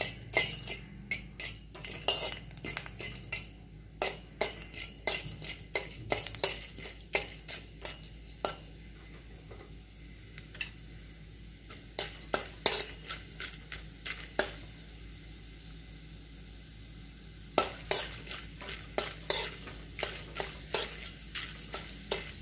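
Steel spoon stirring and scraping chana dal, urad dal and black peppercorns as they roast in a stainless steel kadai: frequent sharp clicks and scrapes of metal on metal. The stirring pauses for about three seconds about two-thirds of the way through, then picks up again.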